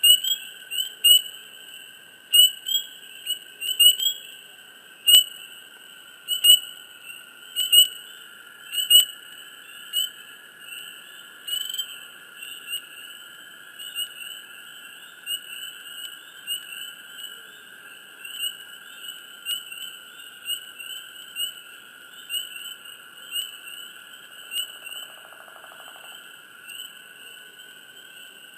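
Swamp frogs chirping close up: short sharp chirps, loud and about once a second for the first ten seconds, then softer and quicker. Underneath runs a steady high-pitched background drone.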